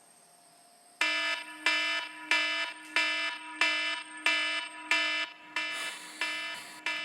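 An alarm starts about a second in and rings in a repeating pattern, about one and a half pulses a second. Each ring starts sharply and fades before the next.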